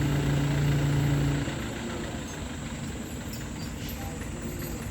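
A heavy vehicle's engine running with a steady low hum that drops away about a second and a half in, leaving a rumble of road traffic.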